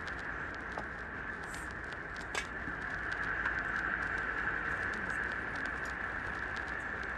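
Six-week-old puppy suckling at its mother's teat: soft, quick smacking clicks, with one sharper click about two and a half seconds in, over a steady hiss.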